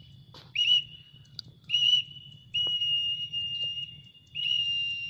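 Whistled calls to summon a trained bird back to the hand: four high, steady notes, the first two short, the third held longest and the fourth about a second long.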